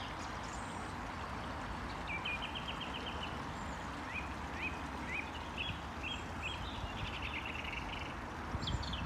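A small stream running steadily, with songbirds calling over it: a couple of rapid trills and several short rising chirps.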